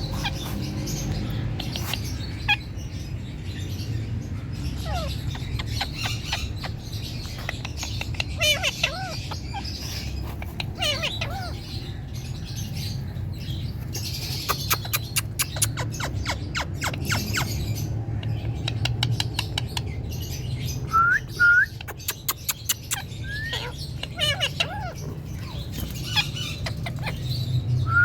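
Pet parrot chirping, clicking and whistling in short calls, with runs of quick clicks through the middle and several short rising whistles later on. A steady low hum runs underneath.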